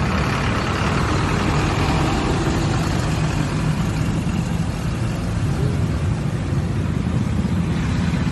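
Heavy road traffic with a bus engine running close by as vehicles crawl through a flooded street: a steady deep rumble under a constant hiss.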